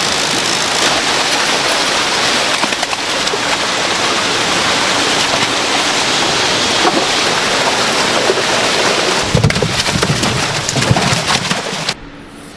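Farmed salmon thrashing in a crowded pen, a dense, steady splashing at the water surface much like heavy rain, with some heavier low thuds late on. It cuts off suddenly near the end.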